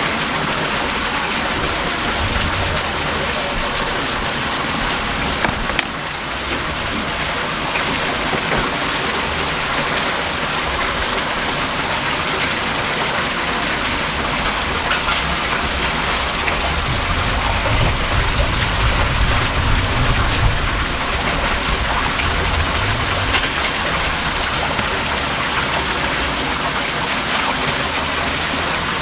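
A steady rushing hiss, water-like, running throughout, with a low rumble swelling a little past halfway.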